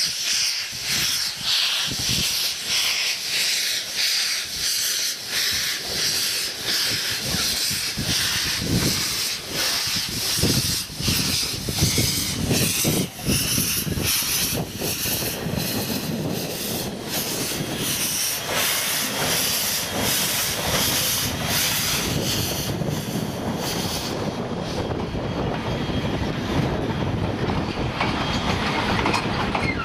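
Steam locomotive W934, a 4-8-2 W class, working hard past with a passenger train: its exhaust beats in a steady rhythm over loud hissing steam from the open cylinder drain cocks. The hiss drops away near the end, leaving the rumble and clack of the carriages rolling over the rail joints.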